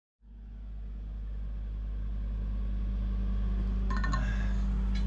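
A steady low machine rumble with a constant hum, fading in from silence over the first second or two and then holding steady.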